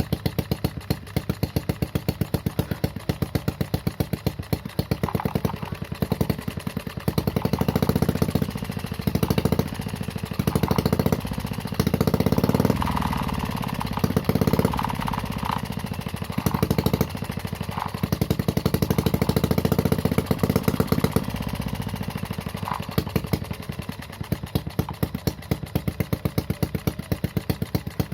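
Homemade miniature four-stroke engine running with a bassy exhaust note. It idles with distinct, evenly spaced firing pulses and is revved in a series of short blips through the middle, then settles back to idle near the end.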